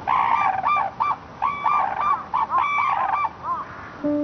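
Red-crowned cranes calling: loud, ringing calls in quick phrases, a long call overlapping with shorter arched ones, repeated about four times.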